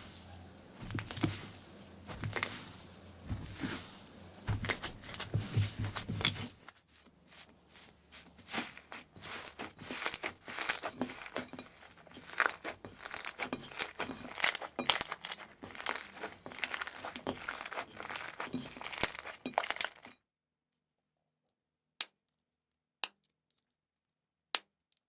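Slime being squeezed and worked by hand, giving dense crackling pops and clicks. About four-fifths of the way through the sound cuts to silence, broken only by three single clicks.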